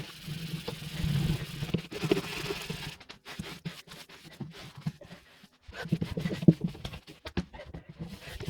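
Scrubbing and scraping on a fridge's surfaces during cleaning, in uneven strokes with scattered clicks and knocks.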